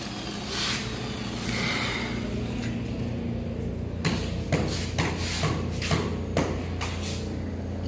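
A run of short knocks or taps, about two a second, starting about halfway through, over a steady low hum.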